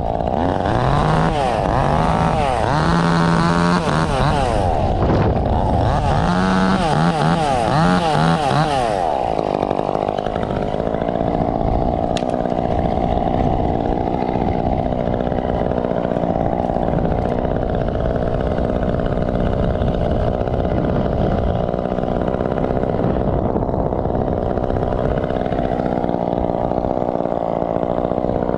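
Gas chainsaw engine revving up and down repeatedly for about the first nine seconds, as in a series of cuts, then running at a steady, lower speed for the rest.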